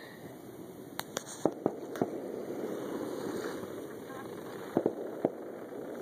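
Fireworks popping in the distance: a quick run of sharp pops about a second in, and a few more near the end, over a steady background hiss.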